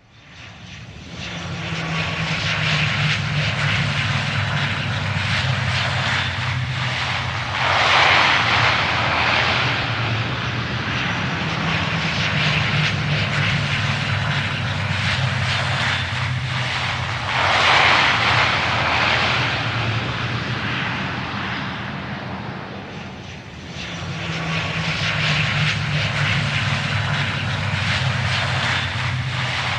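Jet engine noise from a Ryanair Boeing 737-800 on its landing, its CFM56 turbofans running with a steady low hum under a wide rushing noise. The noise swells louder about 8 and 18 seconds in and again at the end, and dips briefly a little after 22 seconds.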